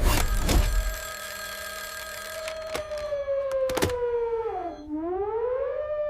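A siren wailing in one long tone that slides slowly down in pitch, dips, and climbs back up, with a few sharp knocks in the first few seconds.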